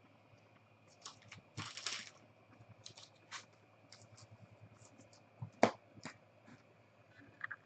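Trading cards being handled on a table: scattered clicks and taps with a short sliding rustle about two seconds in, the loudest a sharp tap a little before six seconds in, over a faint steady hum.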